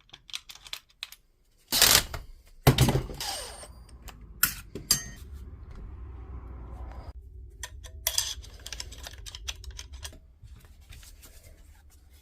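Clicks and knocks of a cordless jigsaw's plastic housing and parts being handled and fitted back together, with two louder knocks about two and three seconds in.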